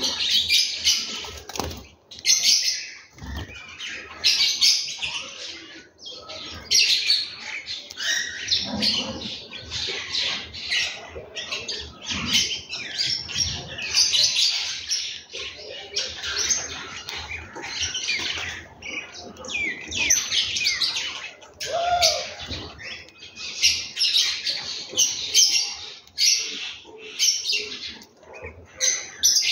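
A group of house sparrows chirping continuously, many short chirps overlapping with hardly a pause.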